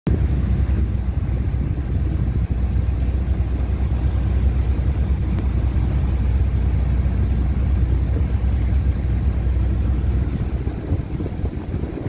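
Boat's engine running with a steady low drone, with wind rumbling on the microphone. The low drone eases a little near the end.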